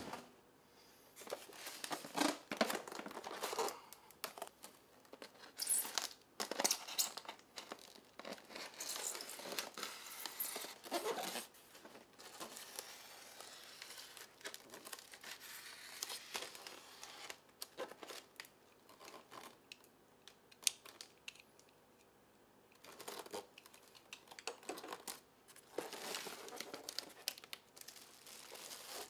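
Expanded-polystyrene foam shipping box being handled and opened: foam parts rubbing, scraping and knocking in irregular bursts as the lid is worked off, then plastic wrapping crinkling near the end.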